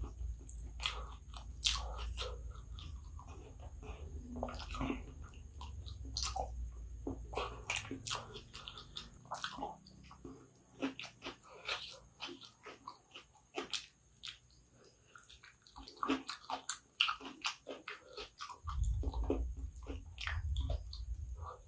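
Close-miked eating sounds of someone chewing kottu, a dish of chopped roti and vegetables, taken by hand. Many short wet clicks and smacks come from the mouth, over a soft low rumble that fades out about halfway and comes back near the end.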